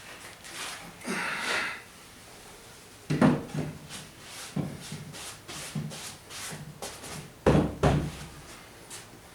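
Wooden knocks and handling noises, such as a repaired wooden chair being moved and set down: a brief rustle about a second in, then a sharp knock with a low thud about three seconds in, lighter clicks, and a second heavy double knock near the end.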